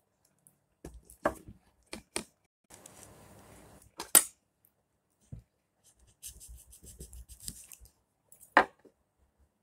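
Hands handling bananas and their packing: scattered clicks and knocks, two sharp louder ones about four seconds in and near the end, with a soft rustle about three seconds in and a faint crackly rustle about seven seconds in.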